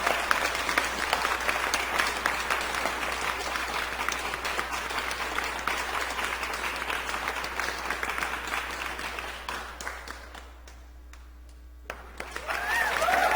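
Crowd applause, a dense patter of many hands clapping, that fades out about ten seconds in; after a short pause a new sound begins near the end.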